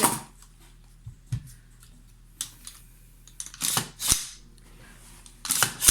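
AR-15 rifle being cleared for a safety check: a series of sharp metallic clicks and snaps from its action, with the loudest at the start, around four seconds in and near the end.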